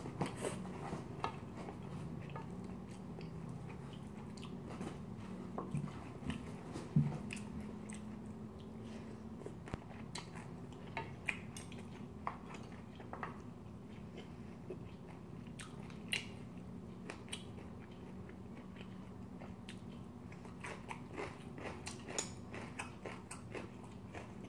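Close-miked chewing of a mouthful of seafood curry and rice, with small wet mouth clicks and smacks scattered throughout.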